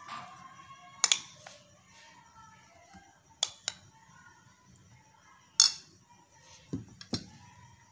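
Wooden spatula knocking and clicking against a glass mixing bowl while flour is folded into sponge cake batter: a handful of sharp, irregular knocks, the loudest a little past the middle.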